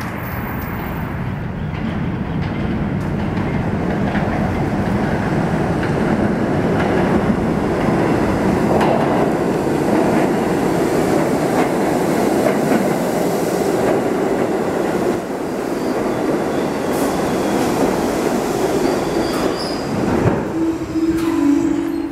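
New York City Subway 1 train of R62A cars arriving at an underground station: the train runs in on its steel wheels and slows along the platform, with a short falling tone near the end.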